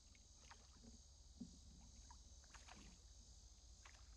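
Near silence: a few faint clicks and knocks of a fishing rod and reel being handled in a kayak, over a steady high hiss.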